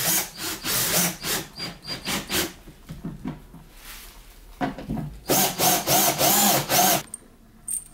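Cordless drill driving large screws into a sofa bed's wooden frame. The motor runs in several bursts, the longest about five seconds in, with knocks and rattles between them as the drill and screws are placed.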